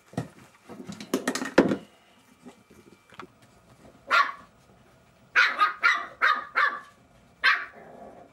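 Jack Russell Terrier puppies yapping in play: short high-pitched barks, one about four seconds in, then a quick run of about five and one more near the end. Close scuffling and knocks come first.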